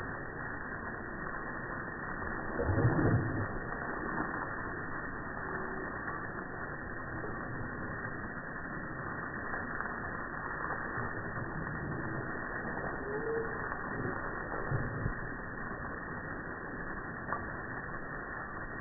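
Muffled, steady hiss of a garden hose's water spray, with a dog biting and splashing in the stream; a dull thump about three seconds in is the loudest sound, with a couple of smaller ones later.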